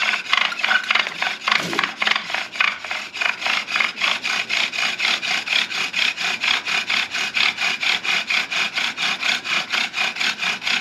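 Cedar bow drill at work: the cedar spindle spun back and forth in the burn-in of a cedar fireboard, giving an even, rasping rub with each bow stroke, about five a second at a steady pace. The friction is grinding out charred wood powder into the V-notch to build an ember.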